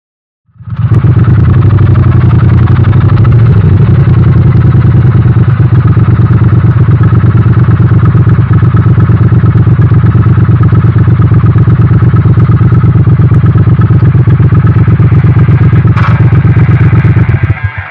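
Harley-Davidson Pan America's 1250 Revolution Max V-twin running steadily through a Screaming Eagle aftermarket exhaust, with a loud, even low pulse and no revving. It starts about half a second in and drops away just before the end.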